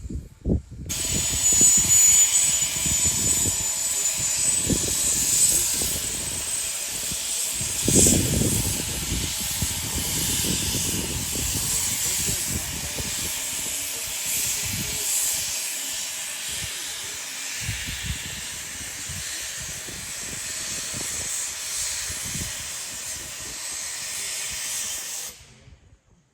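Steam locomotive letting off steam: a loud, steady hiss that starts suddenly about a second in and cuts off suddenly near the end, with irregular low thumps beneath it.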